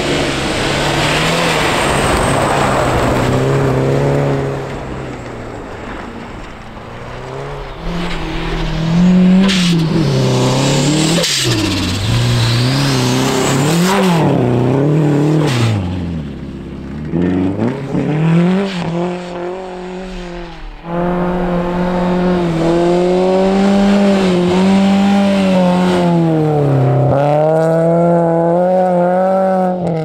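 Turbocharged Subaru WRX STI rally car's flat-four engine driven hard, revving up and dropping back again and again through gear changes and throttle lifts, with a few sharp cracks in the middle. About two-thirds of the way through the engine sound returns abruptly and keeps revving up and down.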